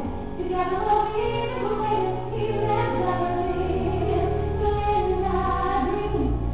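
A live musical-theatre performance: female voices singing with an orchestra, the low accompaniment swelling about three and a half seconds in. The recording is dull and muffled, with no treble.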